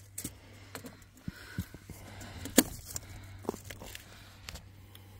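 Scattered light clicks and taps of hands handling a fish and a tape measure on a rubber mat, the sharpest about two and a half seconds in.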